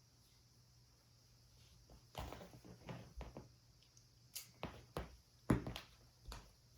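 No vacuum cleaner running: a faint steady room hum, then from about two seconds in a string of irregular light knocks and rustles, louder for a moment near the middle, like things being handled on a tatami floor.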